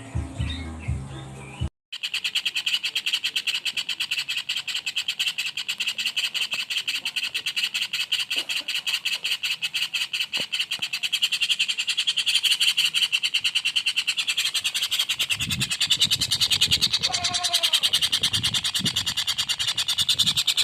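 Songbird masteran recording: a high chirping call repeated very fast and evenly, many notes a second, without a break. It follows a brief stretch of music that cuts off just under two seconds in.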